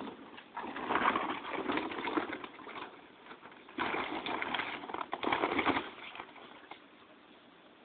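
Plastic tarp rustling and crinkling as a dog tugs and shakes it. The sound comes in two long stretches, with a short lull between them, and goes quieter near the end.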